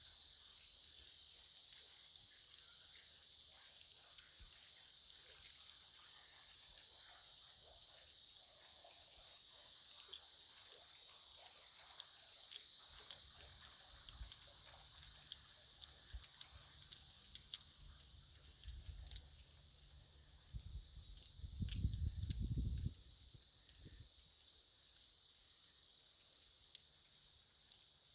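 Steady high-pitched chorus of crickets and other insects, continuous and unbroken. A brief low rumble comes about three quarters of the way through.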